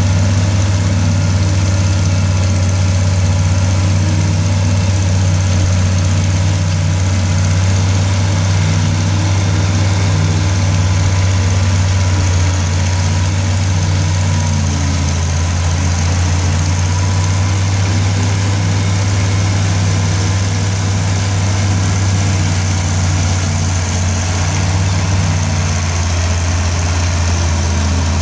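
International Farmall 806 tractor's six-cylinder diesel engine running steadily under heavy load while it pulls and drives a forage harvester chopping standing corn. Black smoke pours from its stack, the sign of how hard it is working.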